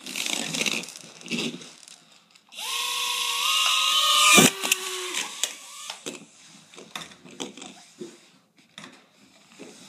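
Small toy quadcopter drone's motors whining at high speed: a short burst near the start, then a longer run that rises slightly in pitch and cuts off with a knock midway, as the drone hits something. Light clicks and taps follow.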